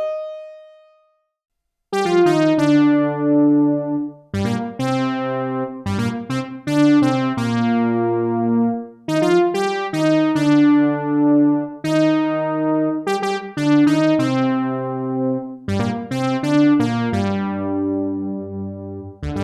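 Synthesizer playing a series of sustained chords through the Donner Vintaverb stereo reverb pedal on its Studio algorithm. Each chord opens with a bright, electric-piano-like attack whose brightness fades. The chords begin about two seconds in, after a short gap.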